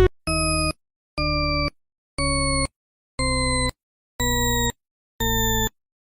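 Electronic beeping: a steady tone repeating about once a second, six beeps of about half a second each.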